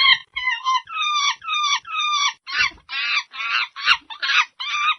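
A rapid run of short, high-pitched animal calls, about two or three a second, many of them sliding down in pitch.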